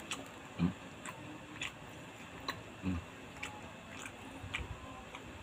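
Scattered light clicks and a few soft knocks as a black plastic sushi tray is handled and tilted.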